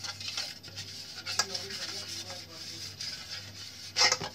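Fingers rubbing oil around the inside of an aluminium bowl to grease it: a continuous scratchy rubbing in quick strokes, with one louder, sharper stroke near the end.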